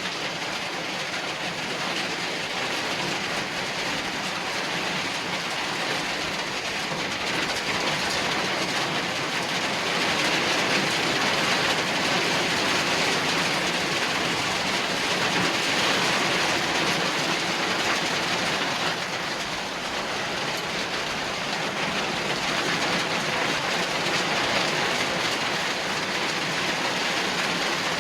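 Heavy rain falling in a steady, dense hiss, swelling a little in strength now and then.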